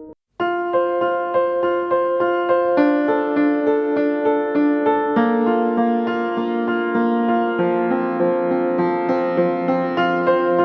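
Background piano music with a gentle, regular pulse of notes and slowly changing chords; a different track cuts in after a brief gap near the start.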